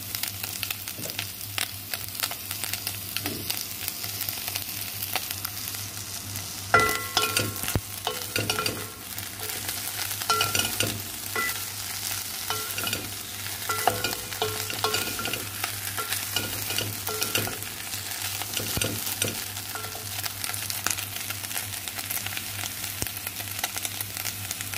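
Chicken, carrot strips and mushrooms sizzling in a nonstick pot while a wooden spatula stirs them, with clicks and scrapes of the spatula against the pan. A knock about a quarter of the way in, after which short squeaky notes come and go with the stirring.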